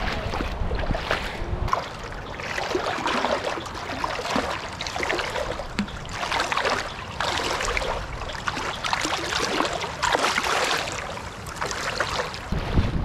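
Footsteps wading through swamp water, each stride sloshing and splashing, in a repeated surge about once a second.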